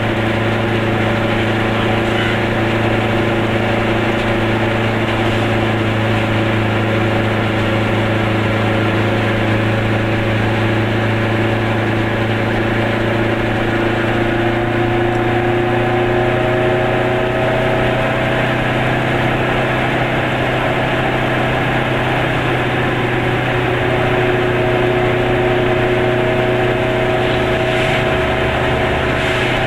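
Car engine running steadily while driving at cruising speed, with tyre and road noise, heard from inside the cabin. The drone holds a steady hum, its pitch shifting slightly now and then.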